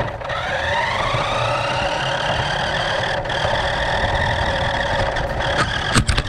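New Bright 1:14 Polaris Ranger toy RC car driving, its small electric motor and gearbox whining. The pitch rises over the first second or so, then holds steady. A few sharp clicks come near the end.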